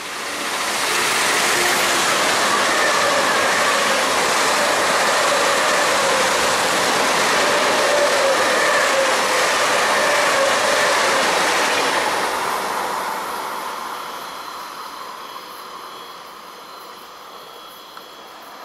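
ICE high-speed electric train passing close by at speed: a loud rush of wheel and air noise. It swells within the first second, holds steady for about eleven seconds, then fades away.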